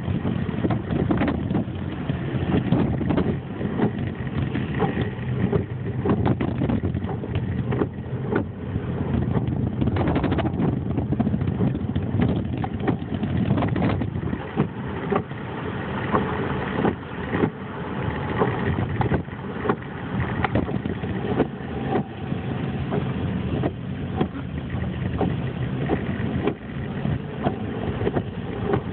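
Car running, a steady rumble of engine and road noise with frequent small knocks and rattles throughout.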